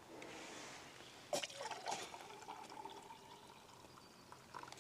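Faint pour of water into a mug for a brew, with a thin steady note as the mug fills, after a single click.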